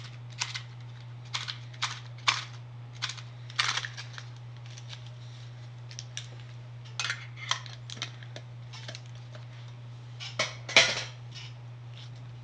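Pokémon collector tin contents and their packaging being handled: scattered crinkles, clicks and taps, the loudest about eleven seconds in, over a steady low hum.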